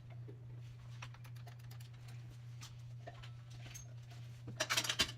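Light scattered clicks and taps of small metal disc-brake parts, pads and pins, being handled, over a steady low hum. A brief, louder rattle about four and a half seconds in.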